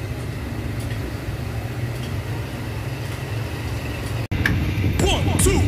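Roadside street ambience: a steady low hum of traffic and surroundings with no clear single event. It breaks off abruptly about four seconds in, and louder sound with a wavering pitch follows.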